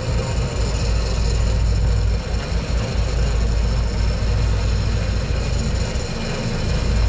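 Big-game fishing reel's drag buzzing steadily as a hooked bluefin tuna takes line, over a continuous low rumble.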